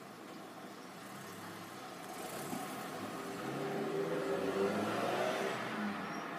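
A road vehicle's engine passing by, growing louder from about a second in and loudest around four to five seconds, then easing off near the end.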